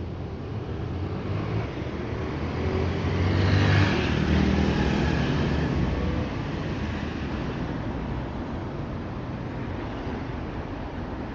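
Cars driving through a street intersection: engine and tyre noise swells to a peak about four seconds in as vehicles pass close by, then settles into steady traffic noise.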